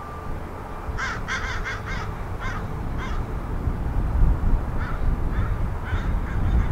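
A bird calling in short repeated calls: a quick run of about five about a second in, then single calls roughly half a second apart. Beneath them a low rumble builds steadily louder.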